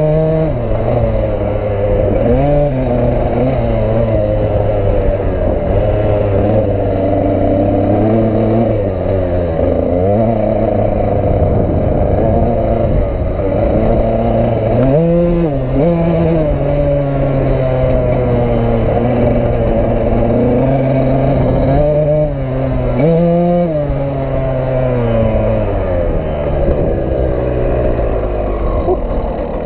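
KTM EXC two-stroke dirt bike engine being ridden hard off-road, its revs climbing and dropping with the throttle, with several sharp bursts where the pitch shoots up before falling back.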